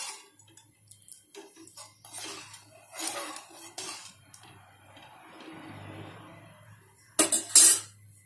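Metal ladle stirring chickpea curry in a metal kadhai, scraping and clinking against the pan now and then. Near the end a loud clatter of metal knocks as the ladle is taken out and put down.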